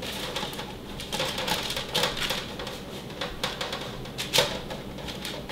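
Oiled kale leaves being spread by hand over parchment paper on a metal baking sheet: irregular crinkling of leaves and paper with small ticks, one sharper tick about four seconds in.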